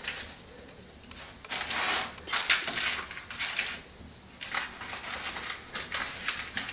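Baking paper crinkling and rustling in irregular bursts as hands press and fold the edge of rolled-out pastry dough lying on it.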